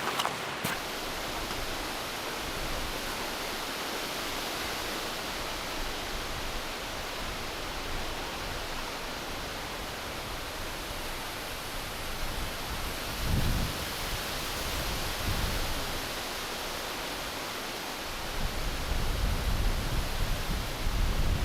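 Strong wind rushing steadily through the valley, with low rumbling gusts buffeting the microphone about two-thirds of the way in and again, heavier, near the end.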